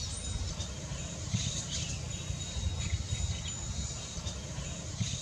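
Outdoor ambience: a low rumble under a steady thin high tone, with scattered short high chirps.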